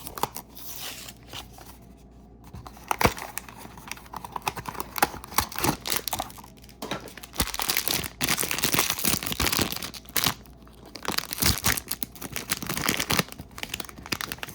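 Cardboard blind box being torn open and the bag inside ripped and crinkled by hand: a run of irregular tearing and crackling, getting busier after the first few seconds.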